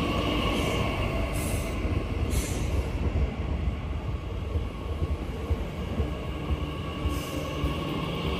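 Train running along the track: a steady low rumble with a whining tone and an irregular rattle of wheels over the rails, plus three brief high hisses.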